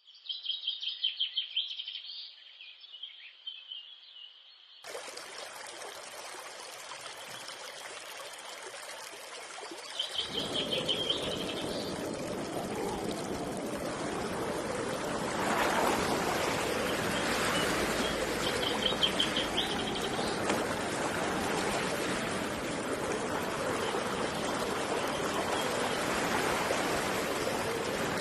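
A songbird singing short, rapid trills alone at first. About five seconds in, running water of a river comes in, growing fuller and louder about ten seconds in, with the bird's trills repeating over it now and then.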